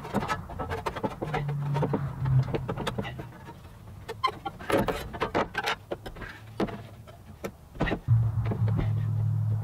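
Hand tin snips biting through sheet metal that is a little too thick for them: a run of short, sharp metallic clicks and snips at uneven intervals. A low steady hum comes in twice, about a second in and again near the end.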